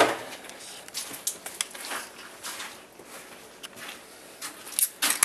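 Scattered clicks and handling noises, then a single sharp crack about five seconds in as the flintlock rifle goes off.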